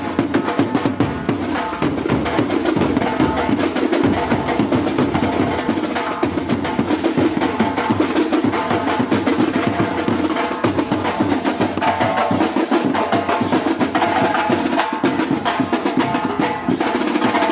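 A marching drum band playing a march: massed snare and tenor drums beating a fast, steady rhythm, with a melody line over the drums.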